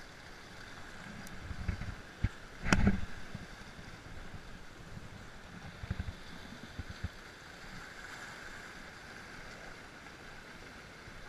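Small sea waves washing and lapping against shoreline rocks, with wind knocking on the microphone in low thumps. A single sharp knock about three seconds in is the loudest sound.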